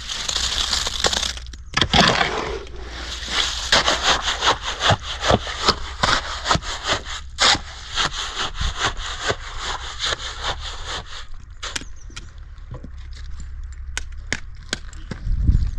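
Rhythmic rubbing or scraping strokes, about two a second, thinning out to scattered clicks after about eleven seconds, with a low thump near the end.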